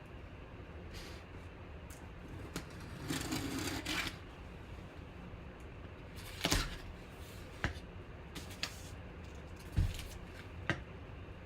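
Packaging being handled and opened by hand: a short rustle about three seconds in, then several scattered knocks and taps.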